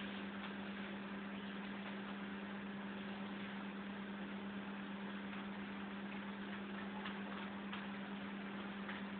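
A steady low hum under a constant hiss, with a few faint ticks; no meowing.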